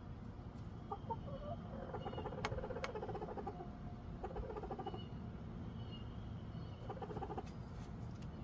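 Chickens clucking in several short bouts, with two sharp clicks between two and three seconds in.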